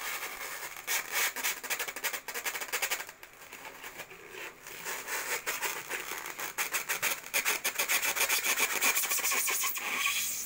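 Styrofoam packaging insert being handled, rubbing and scraping in quick strokes. There are two spells, with a lull about three seconds in.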